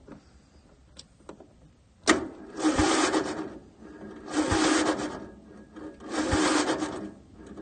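Lawn tractor's Briggs & Stratton starter cranking in short bursts: a click, then four grinding, whirring bursts about a second each as the key is cranked, each starting with a low thump. The engine does not start.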